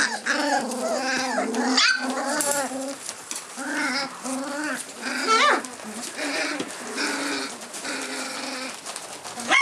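A litter of month-old rough collie puppies vocalizing in excitement, many high calls overlapping, with a few sharp upward-sliding cries.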